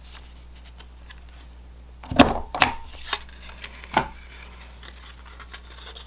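Handheld corner punch clacking shut through cardstock as it rounds the corners. The sharpest clack comes about two seconds in, with another just after and one more about four seconds in, amid paper handling.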